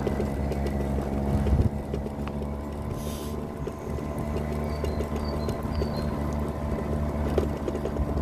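Battery-powered vehicle running steadily along a rough paved path: an even electric motor hum made of several steady tones, with small knocks and rattles from the uneven surface and a short hiss about three seconds in.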